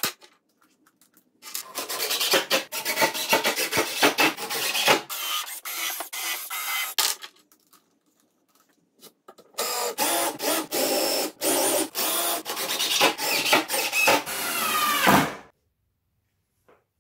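AEG cordless drill driving screws into wood in two runs of several seconds each, with a pause between, falling silent shortly before the end.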